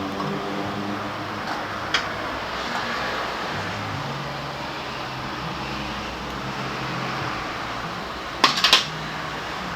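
Sharp metallic clinks of hand tools or small metal parts: one about two seconds in and a quick cluster of several about eight and a half seconds in, over a steady low hum.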